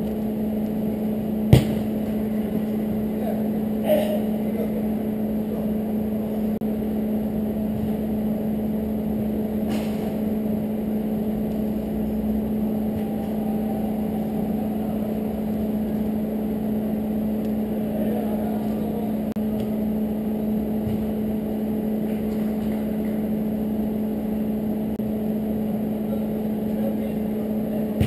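Steady hum with a constant low tone throughout, and a few sharp knocks of a football being struck during play. The loudest knock comes about one and a half seconds in, with lighter ones near four and ten seconds.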